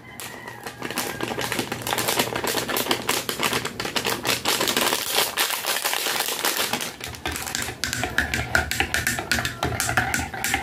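A plastic coffee-mix sachet crinkling and rustling in a fast crackle as it is squeezed and shaken empty into a mug. Near the end a spoon stirs and clinks against the mug.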